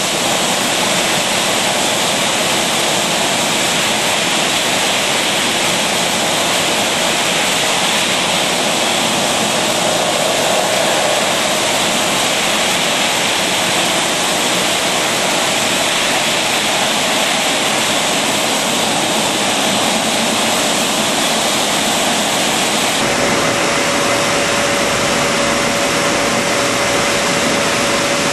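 Rotary bottle filling and capping machine running: a steady, loud hissing whoosh of machinery. About 23 seconds in the sound changes abruptly to a lower, rumbling machine noise with a steady hum.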